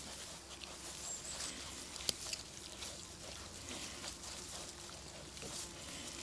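Three-week-old piglets rooting and nibbling in grass close by: steady rustling and crackling with small snuffling clicks, and one sharp click about two seconds in.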